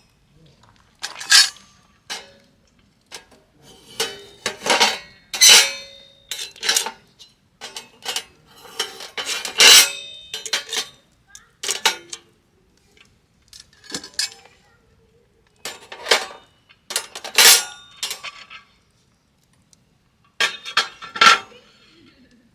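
Metal utensils clattering and clinking against dishes and pans in irregular bursts, some strokes leaving a brief metallic ring.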